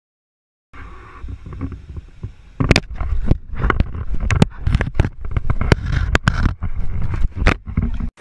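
Handling noise on a camera's microphone as an animal grabs and jostles the camera: a low rumble with a rapid, irregular run of knocks and bumps, starting about a second in.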